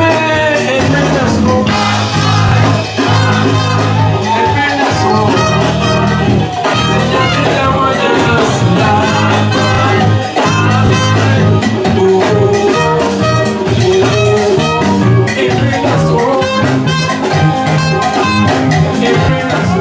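Live band playing upbeat dance music with a steady beat and a repeating bass line, with drum kit, congas, electric guitar and a horn, and a male singer at the microphone.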